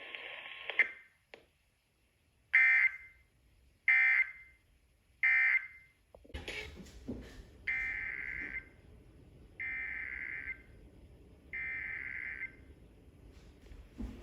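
Emergency Alert System SAME data bursts: three short, buzzy end-of-message bursts about a second and a half apart, which close the tornado warning. About halfway through, the background hiss rises and three longer header bursts follow, announcing the next alert.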